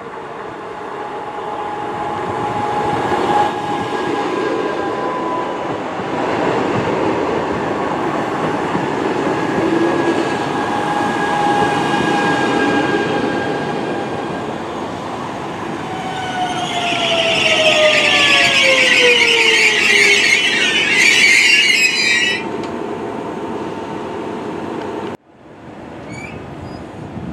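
NSB Class 73 electric multiple unit rolling slowly into the station and past, its running gear rumbling; as it slows, whining tones fall in pitch and a shrill brake squeal rings for several seconds before stopping sharply. Near the end the sound drops away suddenly to a quieter steady hum.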